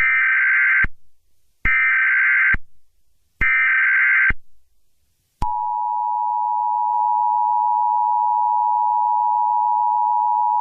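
Emergency Alert System SAME header: three identical buzzy digital data bursts, each just under a second long. About five and a half seconds in, the EAS two-tone attention signal starts and holds steady.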